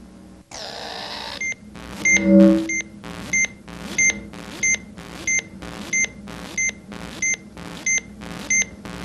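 Electronic sound effect: a hissing swoosh, then a steady run of about a dozen short beeps, roughly three every two seconds, with a brief low tone about two seconds in.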